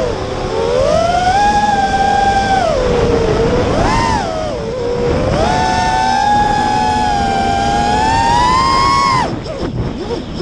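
FPV drone's electric motors and propellers whining, the pitch rising and falling as the throttle is worked, with wind rush underneath. About nine seconds in, the whine drops away sharply as the throttle is cut, then begins to climb again at the very end.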